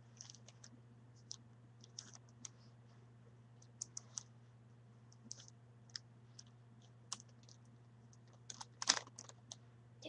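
Rubik's cube being twisted with bare feet: scattered, irregular plastic clicks of the layers turning, with a louder flurry of clicks near the end. A low steady hum runs underneath.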